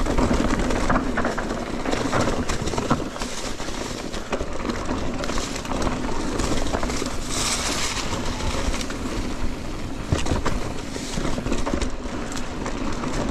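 Mountain bike riding fast down a dirt trail: steady tyre noise and rattling from the bike, with many sharp knocks and clatters as it runs over bumps.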